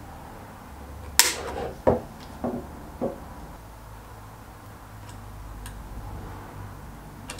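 Diagonal side cutters snipping through the coil driver pins on a Weber-Marelli Cosworth ECU's circuit board: four sharp clicks in about two seconds, the first the loudest, then a couple of faint ticks.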